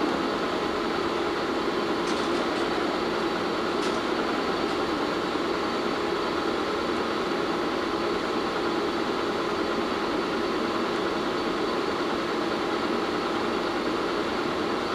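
1952 Bullard Cutmaster vertical turret lathe running with a steady hum from its 30 horsepower main motor and drive while the table is brought back down to low speed. A few faint clicks come about two to four seconds in.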